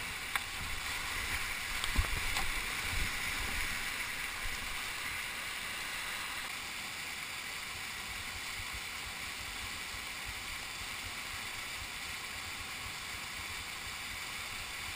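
Whitewater rapid rushing steadily over rocks, heard close up from a camera mounted on a kayak sitting in the current. A few sharp knocks in the first three seconds.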